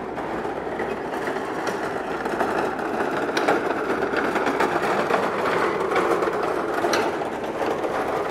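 Busy street noise with a rapid, steady rattling clatter, swelling a couple of seconds in and easing near the end.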